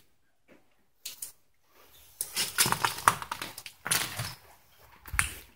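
Footsteps crunching over debris, in irregular crackling bursts, with a sharp knock near the end.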